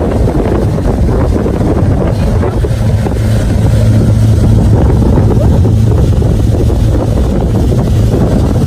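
A motorboat's engine running steadily under way, a low drone, with wind buffeting the microphone; it grows a little louder about three and a half seconds in.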